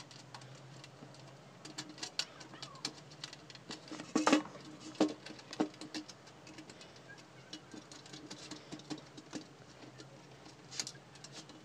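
Small clicks and light metal taps as a push switch is pressed into a steel amplifier cabinet's panel and its nut is worked on by hand. A few sharper knocks come about four and five seconds in.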